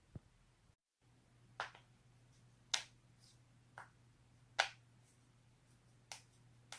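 A person's joints being cracked: a string of about six sharp, separate pops, roughly a second apart, the loudest about halfway through.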